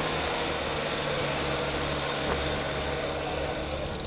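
Minibus engine running steadily under load with road and wind noise, heard from inside the moving bus at an open window.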